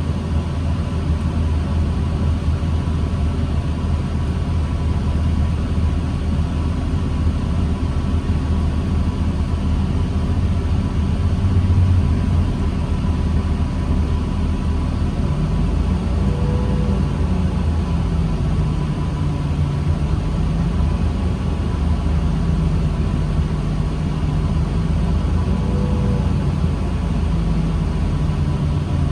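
New Flyer D40LFR diesel city bus heard from inside the cabin: a steady low engine drone with a faint constant whine above it. The engine's note shifts about halfway through, as in slow stop-and-go running.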